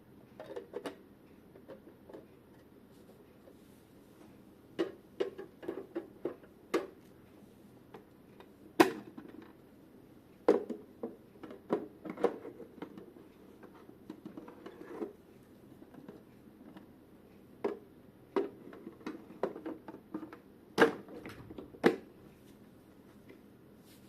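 Hands handling a dehumidifier and its packaging: irregular clicks, taps and knocks, some in quick clusters, with a handful of louder knocks among them.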